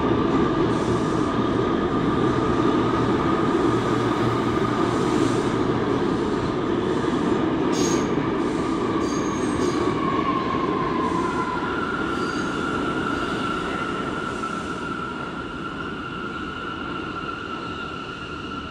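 New York City subway train running on steel rails, a heavy rumble under a steady high wheel squeal whose pitch shifts up a little about ten seconds in. There is a short sharp click near the middle, and the rumble fades over the last several seconds as the train draws away or slows.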